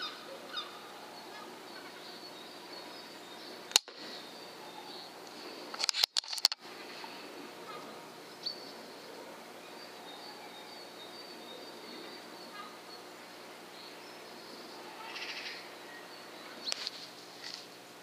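Birds singing in the background, broken by the sharp crack of a .22 air rifle shot about four seconds in and another sharp crack, a quick cluster of sounds, about six seconds in.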